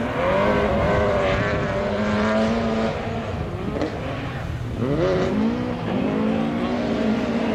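Rally car engine revving hard, its pitch rising and falling through the gears. It eases off about three seconds in, then winds up sharply again about five seconds in and holds high.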